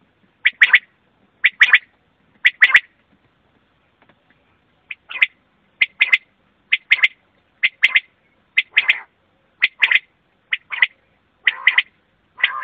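Common quail calling: short, sharp phrases of two or three quick notes, repeated about once a second, with a pause of about two seconds after the first three phrases before the calling resumes.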